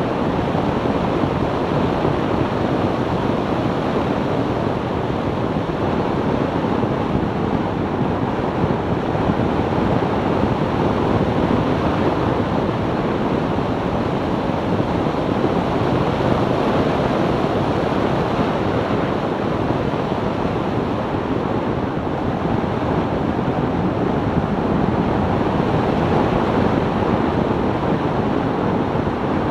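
Steady rush of wind and road noise from a 2002 BMW E46 330Ci cruising at an even pace, with wind buffeting the camera's microphone. No engine note stands out over the noise.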